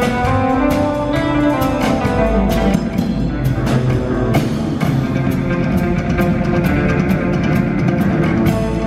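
Live rock band playing: electric guitar lines over a drum kit keeping a steady beat.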